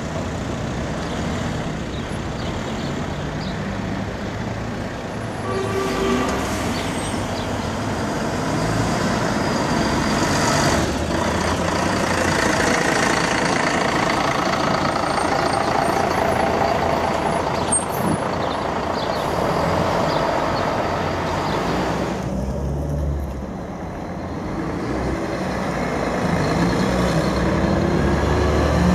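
Diesel coach engines running as coaches pull away and drive past in slow town traffic, mixed with car engines and tyre noise. About two-thirds of the way through the sound changes abruptly, and near the end an engine rises as a coach accelerates.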